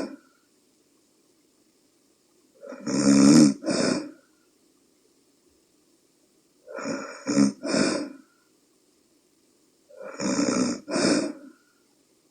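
A woman of about forty snoring in her sleep: three loud snores about four seconds apart, each in two quick parts. She snores despite a nasal dilator worn in her nostrils to widen them.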